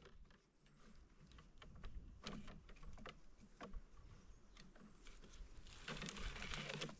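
Sticks and leaves being handled while a makeshift table is put together: faint scattered light knocks and clicks, and a spell of rustling about six seconds in.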